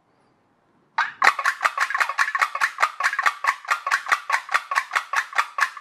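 Homemade pop-pop boat boiler, a flexible steel diaphragm soldered to a jam jar lid, clicking in and out as air is blown through its brass tubes. It is a rapid, even run of sharp clicks, about five or six a second, starting about a second in.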